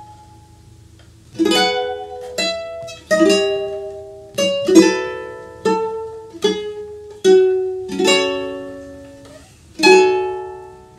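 Ukulele played solo, a slow run of single strummed chords, each left to ring and die away, about one every second after a short pause at the start.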